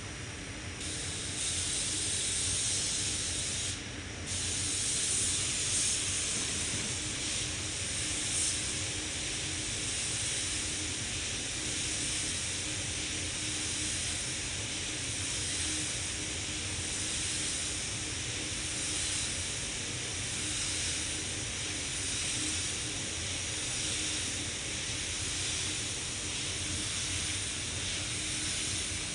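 Gravity-feed spray gun hissing steadily as compressed air atomises paint onto a car door, with a short break about four seconds in where the trigger is let off.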